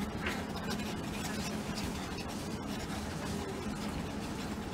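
Pen scratching and rubbing across sketchbook paper in quick looping scribble strokes, over a steady low hum.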